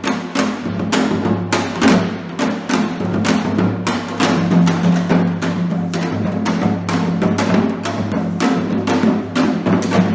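Music played on drums, with fast, dense strikes several times a second over a steady low sustained tone.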